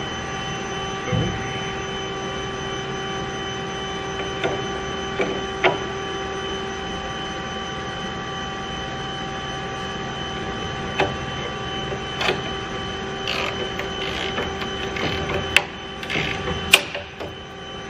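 A steady mechanical hum holding several fixed tones, with scattered sharp clicks and knocks from plastic lamp housings being handled and fitted, coming more often near the end.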